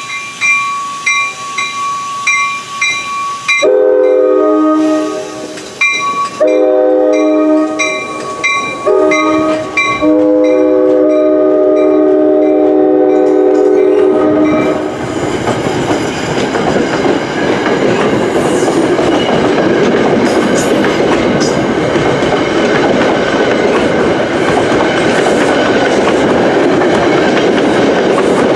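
An NJ Transit passenger train passing close by at speed. A bell rings about twice a second, then the train's multi-chime horn sounds four blasts, long, long, short, long, the standard grade-crossing signal. From about halfway through, the loud rush and rumble of the coaches' wheels on the rails takes over.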